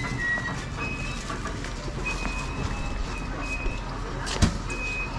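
Diesel railcar on the JR Sakai Line running, heard from inside the car: a steady low rumble with a thin high squeal that comes and goes. A single sharp knock sounds about four and a half seconds in.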